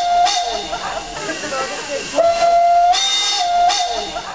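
Steam locomotive whistle blowing in blasts over hissing steam: a short blast at the start, a longer one about two seconds in and a short one near the end, the pattern repeating about every three and a half seconds.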